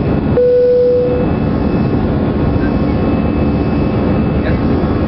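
Airbus A320 cabin noise in the climb after takeoff: a steady roar from the jet engines and rushing air through the fuselage. Just under half a second in, a single short steady tone sounds for under a second.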